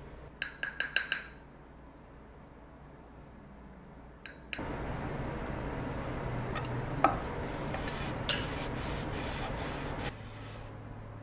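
Kitchen cleaning sounds. A quick run of small ringing clinks of kitchenware comes first. Then, about four seconds in, a steady noise starts and runs for about five seconds with a few knocks in it, and stops abruptly.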